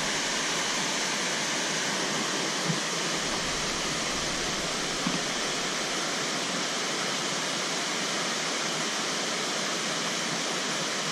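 Steady rush of floodwater pouring over a weir, with two faint short knocks in the first half.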